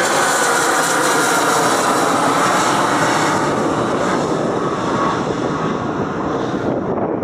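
Boeing 757-200's twin jet engines at takeoff-climb power as the airliner climbs out overhead: loud, steady jet noise with a whining tone falling in pitch in the first two seconds. The high end fades near the end as it moves away.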